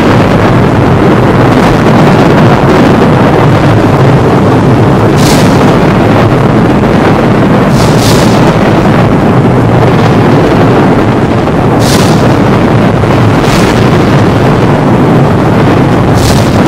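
Thunderstorm thunder rumbling continuously and loud, with several sharp cracks of thunder a few seconds apart.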